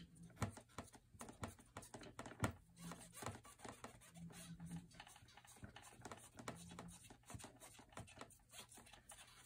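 Alcohol swab being scrubbed and twisted on the plastic needleless connector of a central venous line: faint, irregular scratchy clicks and rubbing, the 15-second disinfecting hub scrub.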